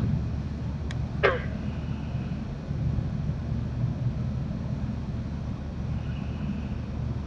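A steady low rumble, with a brief tick and then one short, high call sliding down steeply in pitch about a second in. A faint thin high tone comes twice.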